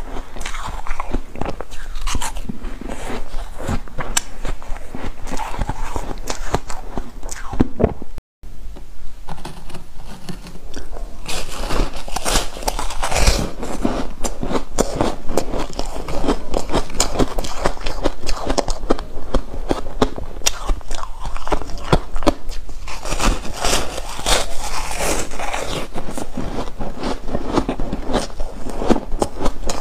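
Biting and chewing of frozen foam ice, picked up close by a clip-on microphone: a dense, continuous run of crisp crunches and crackles. The sound drops out for a moment about eight seconds in, then the crunching carries on.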